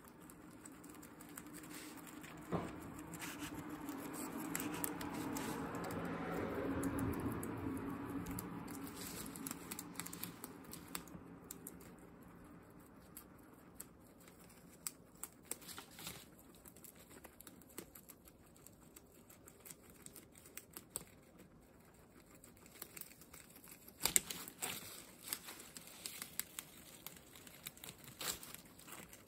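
Guinea pigs chewing and tugging at large fresh leaves, the leaves rustling and crinkling with many small clicks and a sharper click about 24 s in. A low hum swells and fades during the first third.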